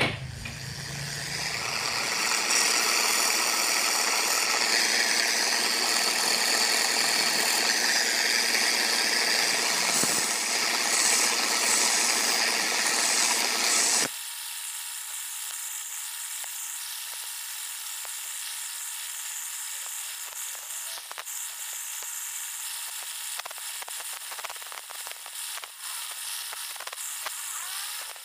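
A loud steady machine noise builds over the first two seconds and cuts off abruptly about halfway. Then a small electric bench belt sander runs steadily while a steel concrete nail is ground against its sanding belt, with scattered scraping ticks.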